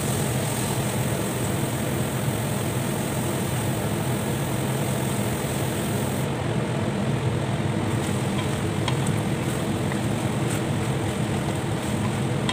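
A steady mechanical drone with an even hiss over it, going on while meat and vegetables cook in a stainless steel pan.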